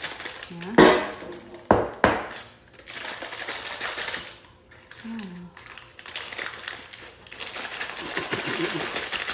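Spoon scraping thick banana bread batter out of a glass mixing bowl and spreading it in a parchment-lined loaf pan: dense rapid clicking and rustling, with a few loud knocks about a second and two seconds in.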